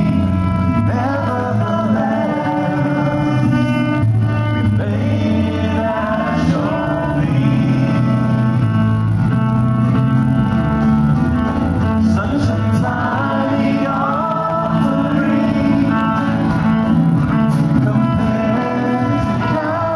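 Live worship band playing and singing a worship song: a group of voices over electric bass guitar and drums with cymbals.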